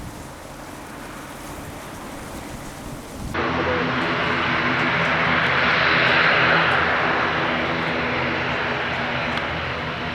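A steady hiss for about three seconds, then an abrupt change to the turbofan jet noise of a Dassault Falcon 2000LX: a loud rushing hiss over a steady engine hum, swelling to a peak about six seconds in and easing slightly.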